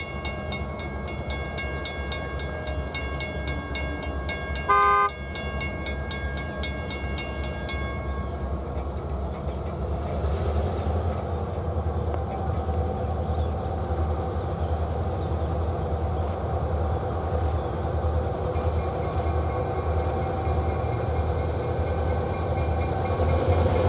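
EMD GP38-3 diesel locomotive pulling away with a train: its bell rings for the first several seconds, the horn gives one short toot about five seconds in, and the engine's low drone grows louder as it accelerates.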